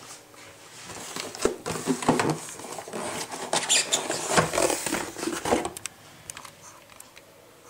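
Cardboard box being opened and the paper wrapping inside handled: a dense run of rustling, crackling and scraping for about five seconds that stops about two seconds before the end, followed by a few faint clicks.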